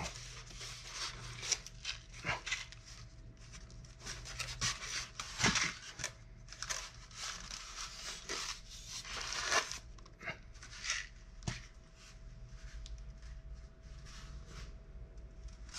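A polystyrene foam shipping case being opened and handled: irregular scrapes and rubs of foam on foam as the lid comes off and the tray is pulled out, with crinkling of the plastic wrap around the figure.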